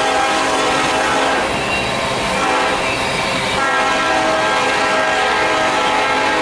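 Freight locomotive's multi-chime air horn sounding long blasts, easing off for about two seconds in the middle, over the steady rumble and clatter of hopper cars rolling by on the rails.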